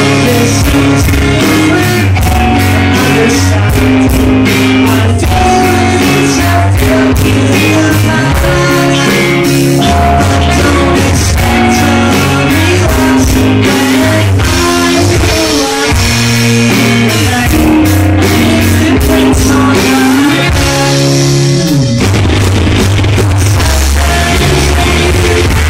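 Loud live rock band: electric guitars, bass guitar, keyboard and drum kit, with a man singing into the microphone.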